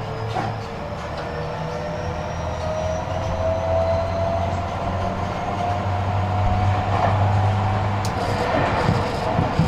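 Tobu 50000-series electric train heard from inside the passenger car, accelerating. Its inverter and traction-motor whine rises steadily in pitch over a low running hum, and it grows louder as speed builds.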